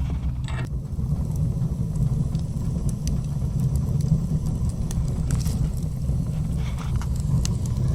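Steady low rumble of a car engine running, with a few faint clicks.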